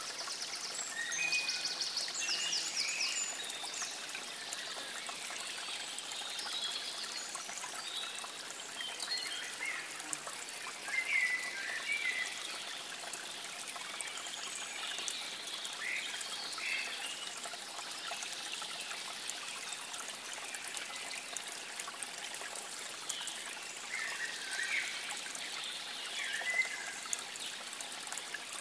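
Water trickling steadily, with songbirds calling and chirping over it, including a quick trill near the start.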